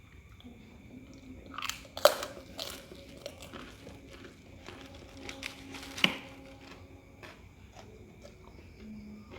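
Close-up eating sounds: a person chewing and biting a mouthful of spicy fried rice, with scattered sharp clicks, the loudest about two seconds in and again about six seconds in.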